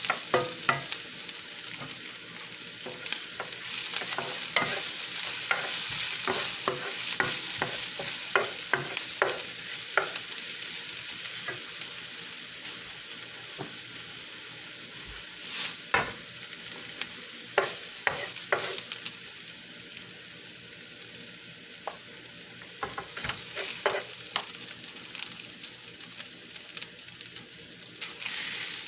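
Fried rice sizzling in a hot pan as it is stirred, with frequent sharp clicks and scrapes of a spatula against the pan. The sizzle is a steady hiss that eases off somewhat after the first half.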